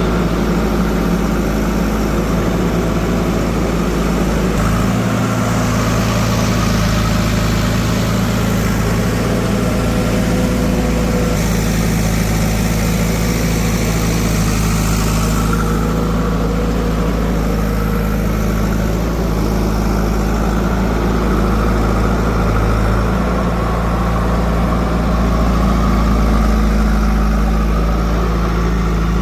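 Diesel engines of a backhoe loader and farm tractors running steadily at low revs. A brighter rushing noise rides on top from about five to fifteen seconds in.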